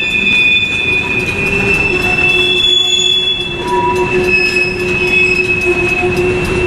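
Freight cars (tank cars and covered hoppers) rolling past over a steady low rumble, their wheels giving off a shrill, sustained squeal in several high tones that waver and shift in pitch: flange squeal as the train takes the curve merging off the CSX Monon Subdivision.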